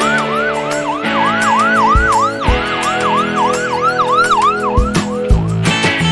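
Police siren sound effect in quick yelping sweeps, each rising then dropping, about three a second, fading out about five seconds in. Background music with held chords and a beat plays underneath.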